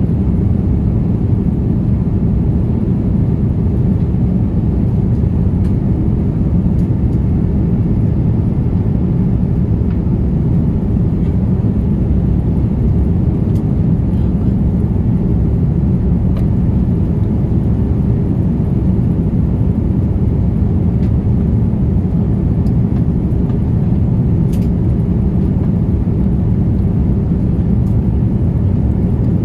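Steady low rumble of a jet airliner in flight, engine and airflow noise heard from inside the passenger cabin.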